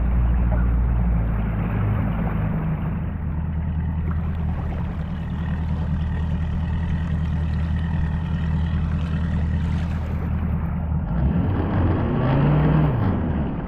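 An engine running steadily under a rushing noise, its note bending down and back up near the end.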